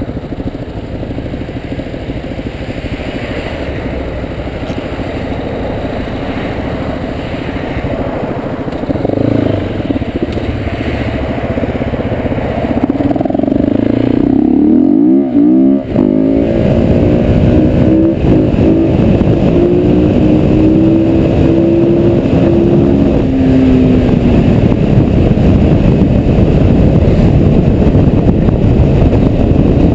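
KTM 690 SMC R supermoto's single-cylinder engine running under way, heard from the rider's helmet, getting louder as it speeds up. The revs rise and fall as it accelerates, with a brief dip about halfway through.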